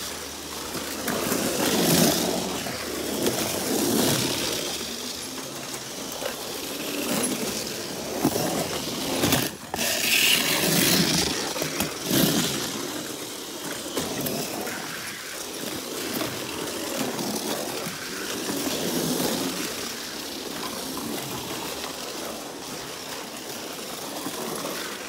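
Tamiya Mini 4WD cars running laps on a track built from plastic board: a buzzing, rattling mechanical noise that swells and fades again and again as the cars pass close by.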